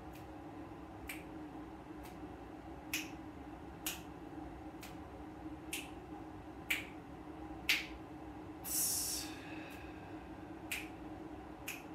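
Steady ticking, about one click a second, some clicks louder than others, over a constant low air-vent hum. A short hissing breath comes about nine seconds in.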